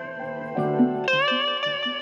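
Guitar music: a sustained lead melody with sliding, wavering notes over a plucked lower accompaniment. A louder phrase comes in about a second in.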